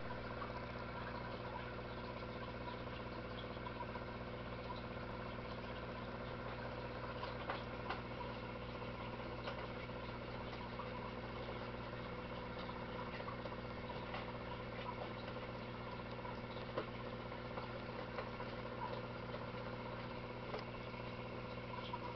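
Steady machine hum with several fixed tones, with scattered faint ticks.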